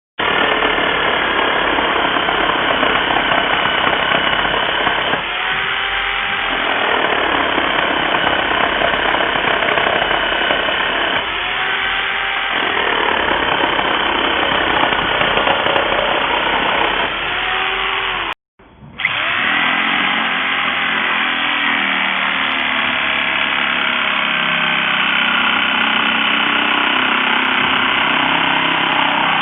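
XCORT XJL02-115 950 W electric reciprocating saw running, its motor pitch shifting and recovering about every six seconds. The sound breaks off for a moment about two-thirds of the way through.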